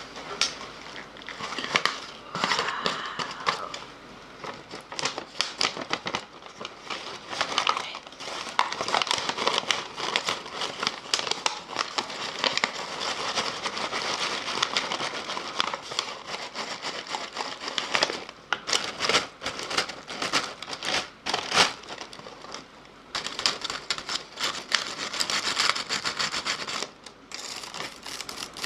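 Close-miked ASMR mouth sounds: a dense, rapid run of wet clicks and smacks, with a few short lulls.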